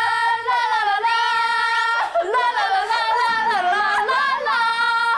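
Young women singing loudly in high voices: a long held note for about two seconds, then a wavering melody, breaking off sharply at the end.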